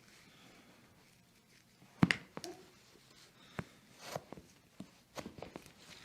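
Joint cracking during a chiropractic adjustment: one sharp crack about two seconds in, followed by scattered lighter clicks and taps.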